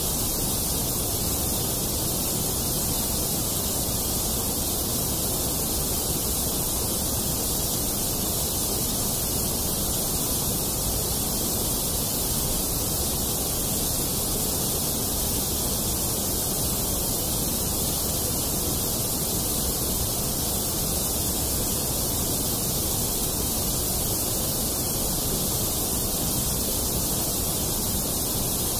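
Steady, unchanging noise like a hiss, the background noise track of a subliminal audio.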